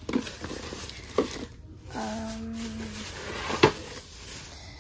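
A woman's drawn-out, flat "mmm" of about a second midway, over rustling and handling of items, with two sharp taps, the second one the loudest.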